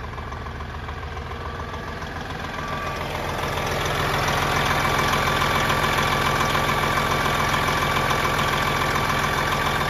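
1999 Peterbilt 377 truck tractor's diesel engine idling steadily, growing louder about three to four seconds in as the open engine bay comes close, with a thin steady whine over the engine.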